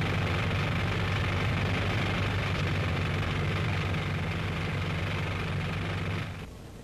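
Motorboat engine running steadily at a constant pitch, then cutting off abruptly about six seconds in.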